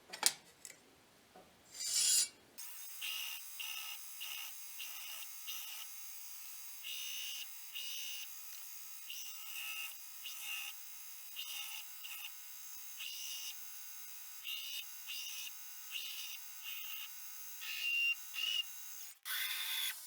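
Repeated rasping strokes of an abrasive or file worked by hand on steel, short and irregular at about one or two a second, after a sharp knock near the start.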